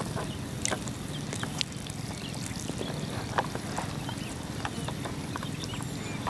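Water lapping and sloshing around an angler wading in a reservoir, with scattered small splashes and clicks over a steady low rumble.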